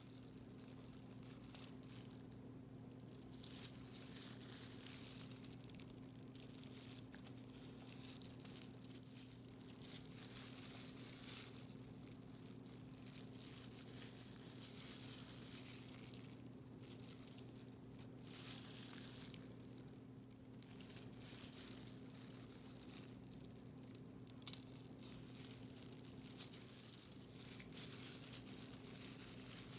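Faint, irregular squishing, crunching and rustling as marinated chicken pieces, onion and bell pepper are pushed onto skewers, over a steady low hum.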